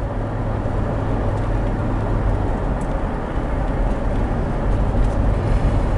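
Steady driving noise inside the cabin of a 1996 Buick Roadmaster Estate wagon cruising along: a low road-and-tyre rumble with the engine running under it.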